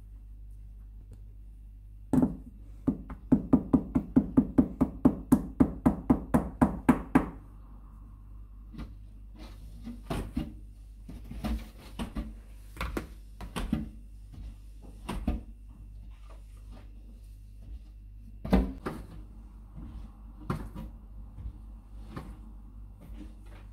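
A quick run of sharp knocks, about three a second for some five seconds, as wet paper pulp is worked in a metal sieve set in a plastic bowl. Then scattered knocks and thumps, one loud one near the end, as the pulp disc is laid on a towel and blotted. A steady low hum runs underneath.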